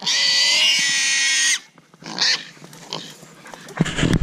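Wild hog squealing while held down on the ground: one long, shrill squeal lasting about a second and a half, then a shorter squeal about two seconds in. A low rumble starts near the end.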